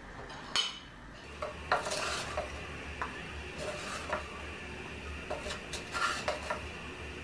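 Wooden spatula scraping and knocking against a kadhai as dry-roasted potatoes are stirred and scooped out, in scattered short knocks and scrapes. A faint steady hum begins about a second in.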